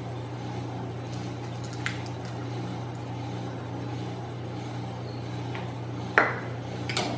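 Light clinks and knocks of kitchenware over a steady low hum. There is a soft click about two seconds in, then a sharper knock about six seconds in and another just before the end.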